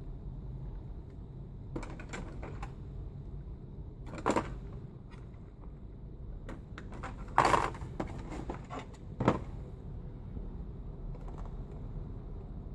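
Hard plastic clicking and knocking as a toy quadcopter and its moulded plastic packaging tray are handled: scattered light clicks, with a few louder clattering knocks, the loudest about seven and a half seconds in.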